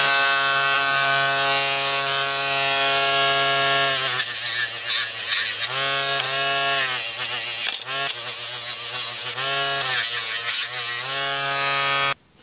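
Small handheld electric tool running with a steady hum, then dipping in pitch again and again as it is pressed against the work: cleaning old gasket maker off a motorcycle cylinder head. It cuts off suddenly near the end.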